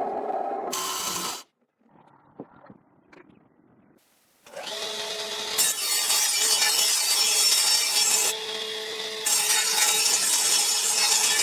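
A tool working wood, sawing or sanding: a short burst at the start, a few faint scrapes and knocks, then steady cutting from about four and a half seconds in, with a brief easing near the end.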